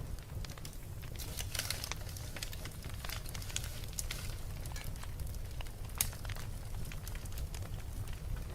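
Fire burning in a fireplace: irregular sharp crackles and pops over a steady low rumble, with one louder pop about six seconds in.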